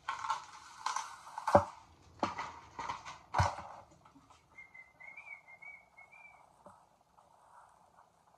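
Cardboard and plastic packaging crinkling as a drawstring ponytail is pulled out of its box, with three sharp snaps in the first few seconds. About halfway through there is a faint wavering whistle, followed by soft, faint rustling of synthetic hair being handled.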